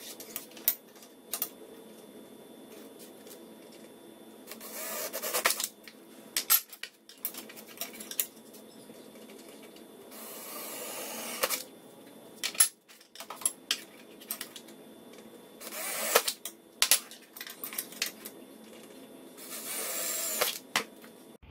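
Cordless drill with a letter A bit drilling holes through metal Bimini-top poles in four short runs, with sharp clicks and knocks of the metal tubes being handled between the runs.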